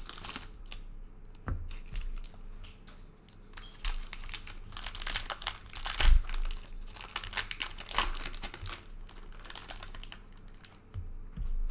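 Trading card pack wrappers crinkling and tearing in irregular bursts as packs are torn open and handled.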